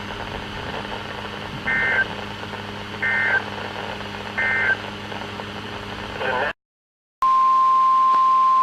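Emergency Alert System end-of-message data: three short two-tone digital bursts about 1.3 s apart over a weather radio's hiss and hum, marking the close of the severe thunderstorm warning. After a brief dropout to silence, a steady single-pitch alert tone near 1 kHz starts and holds, the NOAA Weather Radio warning tone that opens the next alert.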